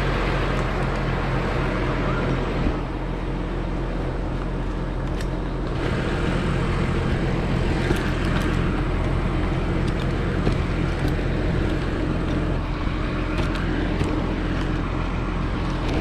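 Engine of a truck-mounted crane running steadily with a low, even hum, and a few light clicks over it.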